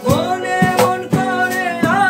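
Acoustic guitars strumming chords while a man sings a Bengali song, his voice gliding between held notes over the strums.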